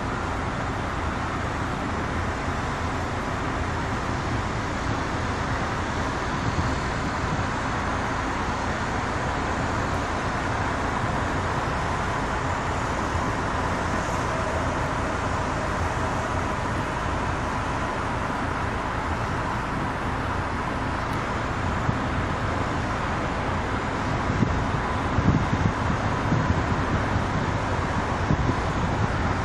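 Steady road noise of a car on the move: an even rush of tyres and wind, a little more uneven near the end.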